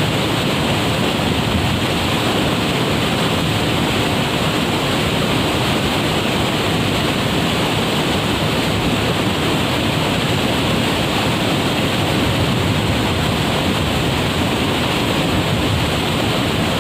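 Waterfall pouring: a steady rush of falling water, unchanging throughout.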